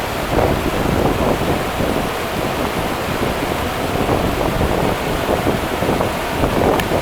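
Rio Grande river water rushing steadily, a dense, even wash of noise strongest in the low and middle range.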